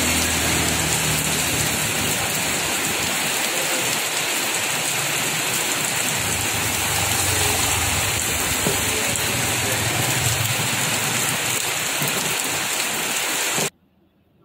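Steady rain falling hard, which cuts off suddenly near the end.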